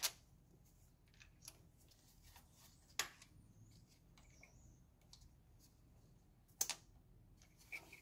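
Sparse light clicks and clinks of tools and timing-chain parts being handled on a VW VR6 engine. There is a click near the start, one about three seconds in, a double click past six seconds and a small one near the end, with near silence between.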